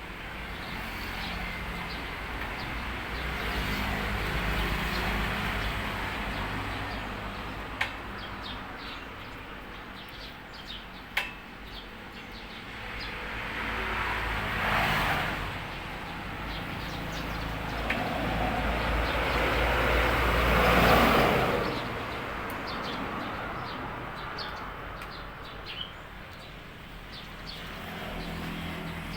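Vehicles passing by, each rising and falling over a few seconds, the loudest about two-thirds of the way in, with birds chirping faintly and two sharp clicks.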